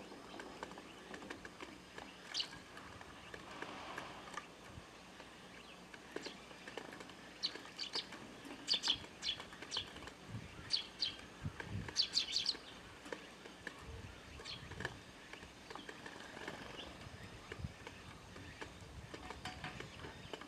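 Eurasian tree sparrows chirping: short, sharp chirps scattered throughout, coming in quick clusters around the middle.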